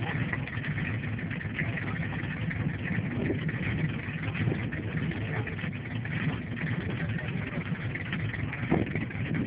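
American big-block V8 engine idling steadily, with no revving.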